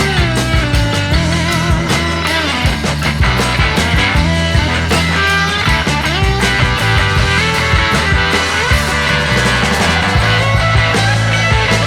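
Loud rock-style music with heavy bass and a melodic lead, played over a large sound system during a sound test.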